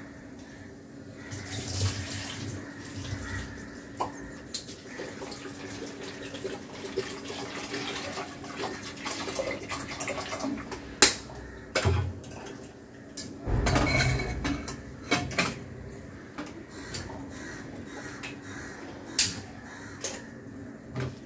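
Kitchen work: water running and pouring, with sharp clicks and knocks of pots and utensils, over a steady low hum. The loudest stretch of water comes about two-thirds of the way through.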